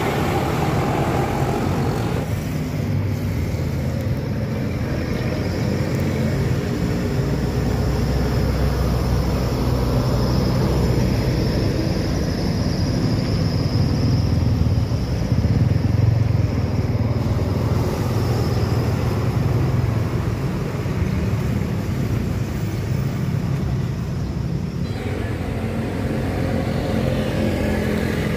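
Road traffic going past close by: the low diesel engine rumble of large intercity buses mixed with motorcycles, the sound changing about two seconds in and again near the end as different vehicles pass.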